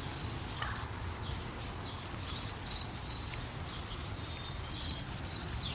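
Footsteps and paws moving over the ground, with several short high chirps scattered through.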